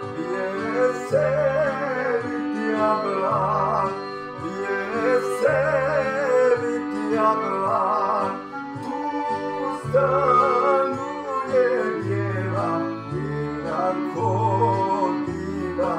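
Balkan folk song: a voice singing a wavering, ornamented melody over a band with a regular, stepping bass line.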